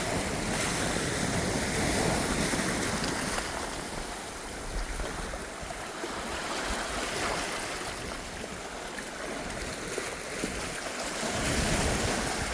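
Ocean waves washing on the shore, a steady rushing that swells and eases, louder about two seconds in and again near the end, with wind rumbling on the microphone.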